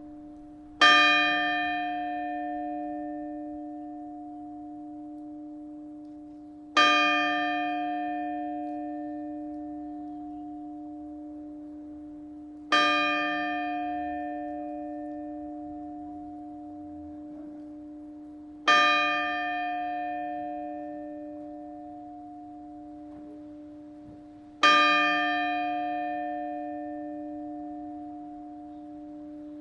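A single church bell tolling slowly, struck five times at an even pace of about one stroke every six seconds, each stroke ringing on and fading before the next.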